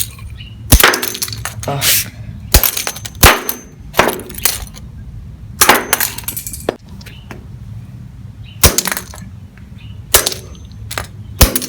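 Repeated blows smashing the broken remains of a plastic Rubik's cube: about a dozen sharp knocks at irregular intervals, some close together in pairs.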